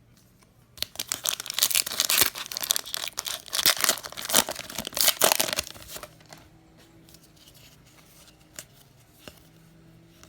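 Basketball card fat pack wrapper being torn open and crinkled for about five seconds, then quieter handling of the cards with a few sharp clicks.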